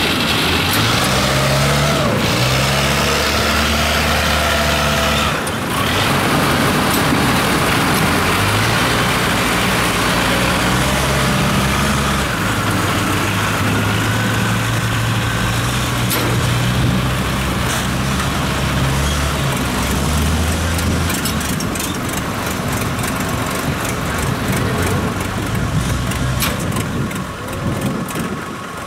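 Engine of a small tracked rice-hauling carrier running under load as it crawls down a bank onto a ferry. Its pitch steps up and down several times in the first two-thirds, then settles into a steadier running noise.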